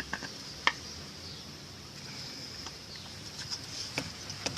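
A few sharp clicks and light knocks from washing machine transmission parts being handled, the loudest about a second in and two more near the end, over a steady high-pitched hiss.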